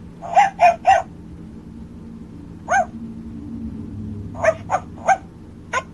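Barbie Hug N Heal toy poodle's electronic barking: short recorded yaps played through the toy's speaker, set off by a squeeze. Three come in quick succession, one comes alone, and four more follow near the end.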